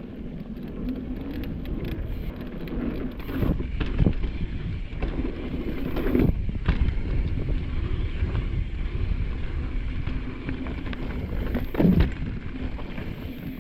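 Mountain bike descending rough dirt singletrack: tyres rumbling over the dirt and wind on the microphone, with sharp jolts from bumps and roots about four, six and twelve seconds in.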